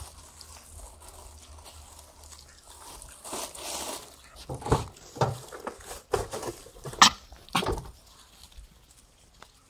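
Hamadryas baboons close to the microphone making a run of short grunts in the middle few seconds, with one sharp click among them.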